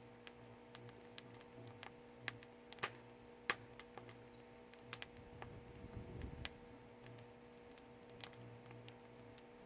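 Firewood burning in a traditional Korean agungi firebox, crackling with scattered sharp pops and snaps at irregular intervals over a faint steady hum. A brief low rumble comes about six seconds in.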